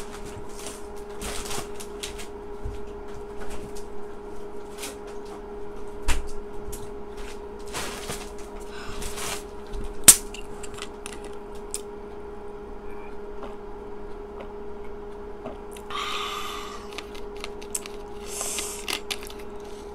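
Scattered clicks, knocks and rustling from someone moving about and handling things, over a steady low hum. Near the end come two short hissing sounds, a couple of seconds apart.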